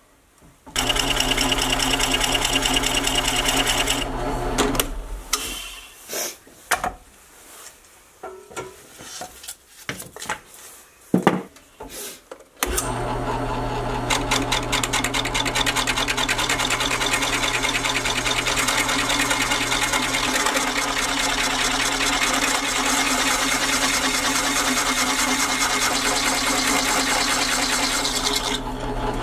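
Drill press running with an adjustable circle cutter cutting a circular groove into a plywood board: a short run of about three seconds, then a pause filled with knocks and handling sounds, then a long steady run from about thirteen seconds in that eases off near the end.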